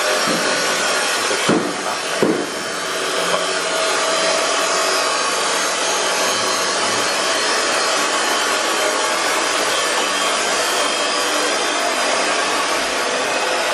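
Electric grinder running steadily on stone, a continuous loud grinding noise, with two short knocks about one and a half and two seconds in.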